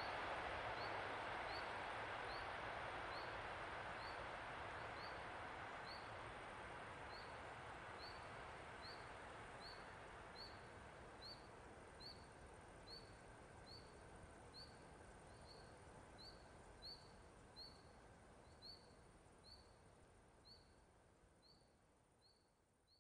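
Faint rumble of a train that has passed, fading steadily into silence, over an even chirping of crickets at about two chirps a second.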